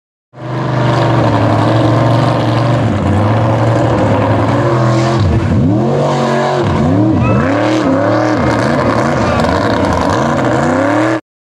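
A mud-bogging mega truck's engine running at high revs, its pitch dropping and climbing back up several times in the second half. The sound cuts off suddenly near the end.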